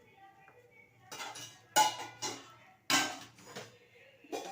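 Metal kitchen utensil clattering and scraping against cookware: a series of sharp clinks, about six over three seconds, starting about a second in.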